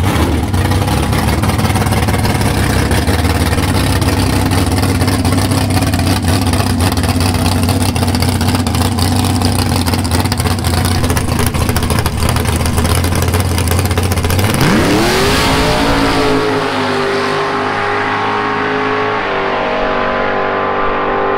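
Drag car's engine running loud and steady as it stages. About fourteen seconds in it launches: the pitch sweeps sharply upward and holds high as the car pulls away down the strip, growing duller as it goes.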